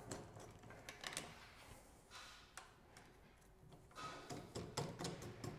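Faint clicks and taps of stainless-steel and anodized-aluminium mounting hardware being handled and fitted, with a sharper click near the end.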